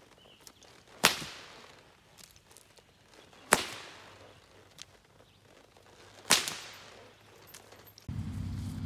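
A whip cracked three times from horseback, each a sharp loud snap with a short fading tail, about two and a half seconds apart. Near the end a steady low rumble starts abruptly.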